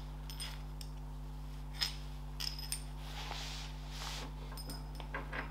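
Light metallic clinks as a bolt and washers are handled and fitted through the front axle carriage frame on the tractor's front end: one sharp clink about two seconds in, then a few lighter ones. A steady low hum runs underneath.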